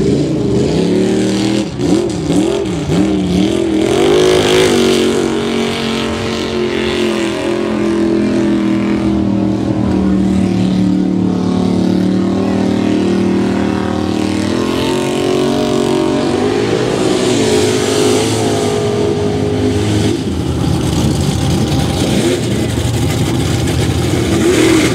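Lifted 4x4 mud trucks' engines revving hard in a mud pit: pitch swings up and down for the first few seconds, holds high and steady for several seconds, then drops back, with another rev near the end.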